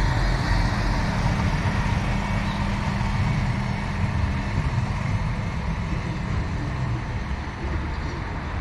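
A large vehicle running with a steady low hum that slowly grows quieter.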